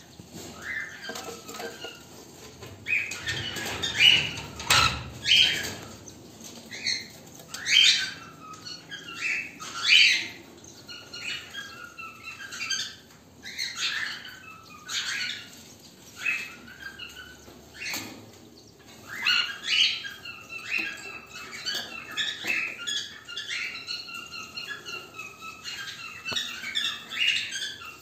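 Cockatiels calling in a cage: short shrill chirps and squawks about once a second, turning into a denser, more continuous chatter in the second half.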